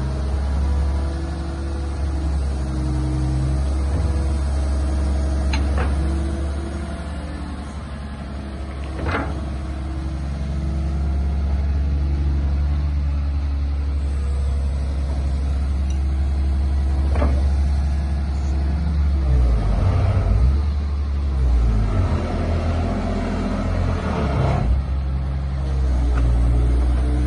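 Terex TC225 crawler excavator's engine running under load. Its note steps up and down as the boom and bucket are worked, with three sharp knocks along the way and a rougher, surging stretch toward the end.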